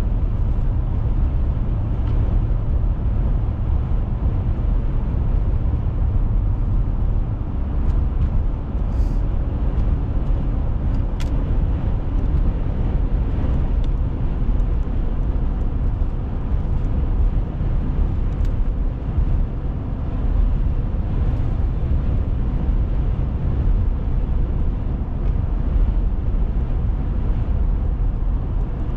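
Steady low road and engine rumble of a car driving along, heard from inside the cabin.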